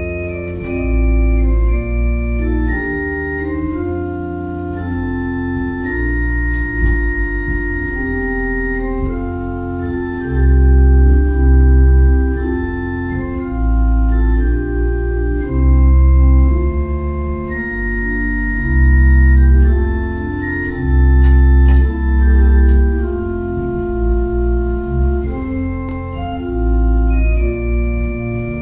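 Organ music: slow, sustained chords of held notes changing every second or two, with deep bass notes coming in and out.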